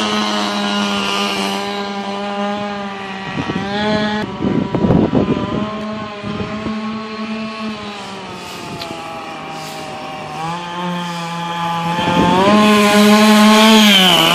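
Small two-stroke engine of a Go-Ped motor scooter running under a rider. It fades as the scooter moves away through the middle and grows louder again as it comes back, and its pitch drops near the end as it passes close.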